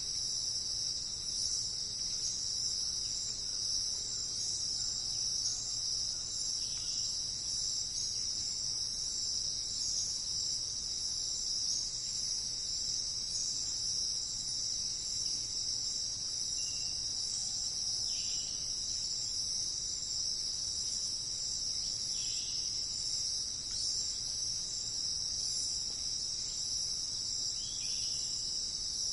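Steady, unbroken high-pitched trilling of an insect chorus, with a few brief faint bird chirps now and then.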